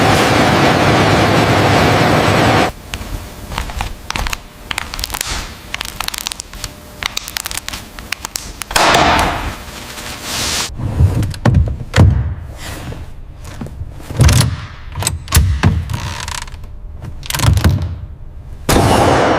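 A loud steady rushing noise cuts off abruptly a few seconds in. It gives way to a run of metallic knocks, clicks and heavy thunks, like metal parts being handled in a workshop, with the deepest thuds bunched together about two-thirds of the way through.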